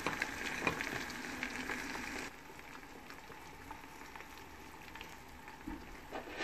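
Diced vegetables sizzling in hot oil in a pan while a wooden spatula stirs and scrapes through them with a run of small clicks. About two seconds in, the sound drops suddenly to a quieter, steady sizzle.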